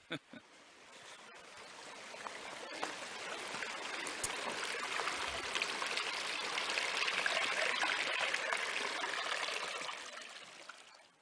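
Flowing water of a stream or river, rushing steadily; it swells in over the first few seconds and fades out near the end.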